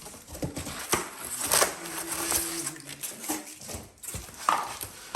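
Objects being handled: irregular knocks, clicks and rustling, with a short steady low tone about two seconds in.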